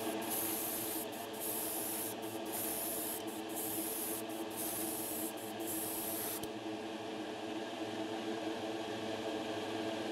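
Airbrush hissing as clear lacquer is sprayed, in short passes with brief breaks, stopping about six seconds in. Under it runs the steady hum of a spray booth's exhaust fan.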